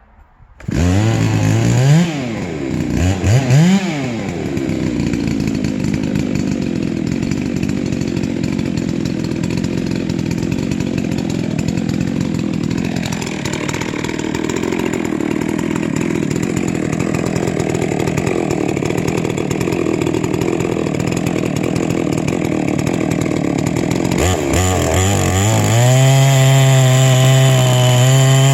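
Huztl MS660 clone two-stroke chainsaw in a chainsaw mill: it starts about a second in and is revved twice, then runs steadily under heavy load ripping a milling pass through a log. Near the end the engine note turns higher and clearer.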